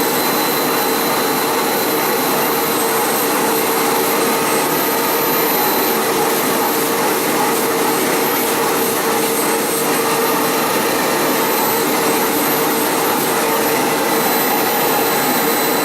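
Vacuum cleaner running steadily: rushing air with a steady hum and a thin high whine, unchanging throughout.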